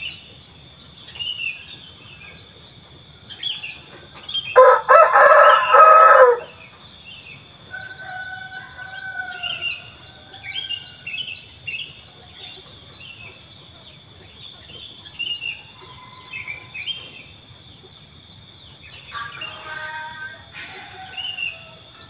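A rooster crows once, loud and drawn out, about five seconds in, over a steady high chorus of insects and scattered short chirps of small birds.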